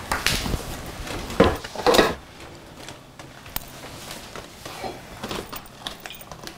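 Kitchen cupboard being rummaged through: objects knocked and shifted about, with a few louder clatters in the first two seconds, then quieter scattered clicks and knocks.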